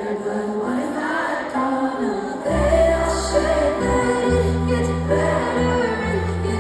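Live pop ballad heard through a phone in a large arena: a female singer over sustained keyboard chords, with many voices singing together. A deep bass comes in about two and a half seconds in.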